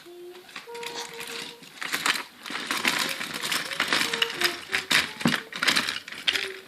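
Small die-cast toy trains clicking and clattering as they are handled and knocked together, quicker and denser from about two seconds in.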